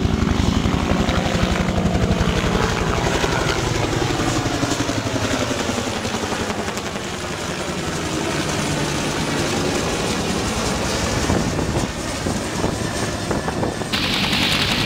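Military helicopters flying past low, an AH-1 Cobra attack helicopter and a UH-1 Huey: fast, steady chopping of the rotor blades under a turbine whine that bends in pitch as they pass.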